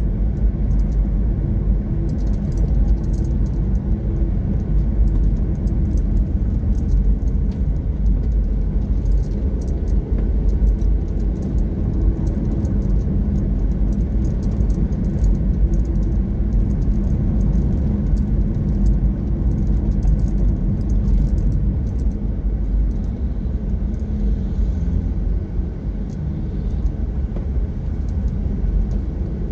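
Steady low rumble of a car driving along a road, engine and tyre noise running evenly with a faint steady hum.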